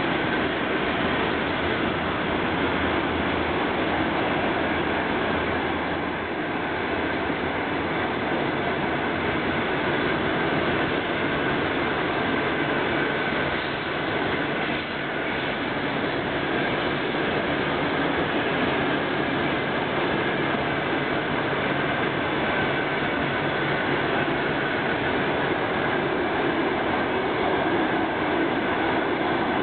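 Passenger coaches of a train rolling past at speed: a steady, continuous noise of wheels running on the rails.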